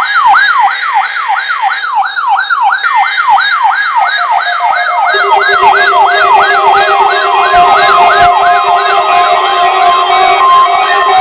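A siren wailing in a fast yelp, its pitch rising and falling about three or four times a second. Steady alarm tones join it about halfway through.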